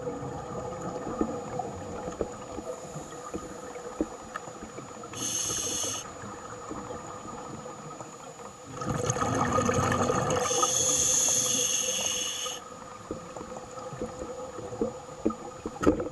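Scuba regulator breathing under water: a short hissing inhalation about five seconds in, bubbling exhaust from about nine seconds in, then a longer inhalation hiss, with small clicks and ticks throughout.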